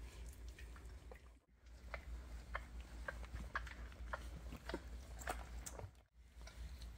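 Doberman puppies suckling at their mother: many soft, wet smacking clicks at an irregular rate of several a second, over a low steady hum. The sound cuts out briefly twice.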